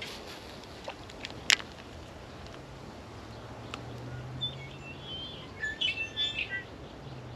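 A small bird chirping: a run of short, quick high chirps starting about four seconds in, busiest toward the end. Two sharp clicks come before it, one at the start and one about a second and a half in.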